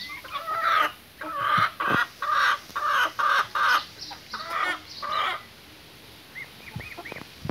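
Chickens clucking: a run of about eight loud, short calls, then a few faint high chirps near the end.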